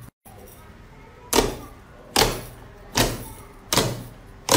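Slime being pressed and squeezed by hand, giving a sharp sound about every second, five in all, each fading quickly. These follow a brief cut to silence just after the start.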